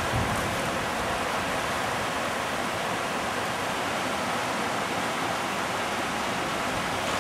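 Steady rushing of whitewater river rapids, water pouring over rocks.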